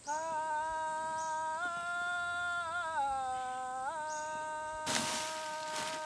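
A voice humming a slow tune of long held notes that step from one pitch to the next. Near the end, a plastic fan rake scrapes across dry leaves and dirt.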